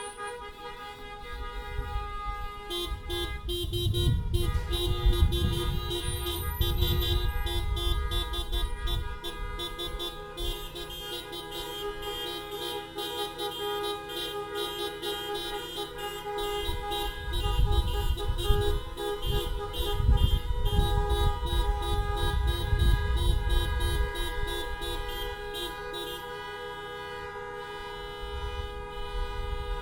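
Many car horns honking together in protest: several horns held long while others beep in rapid repeated toots for most of the stretch, over a low rumble that swells twice.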